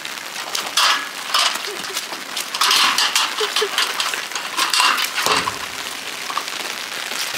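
Repeated metal clinks and rattles from a galvanized steel farm gate and its chain latch being handled, over steady rain.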